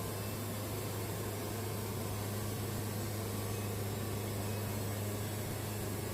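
Wood-Mizer portable bandsaw mill running steadily, with a constant low hum.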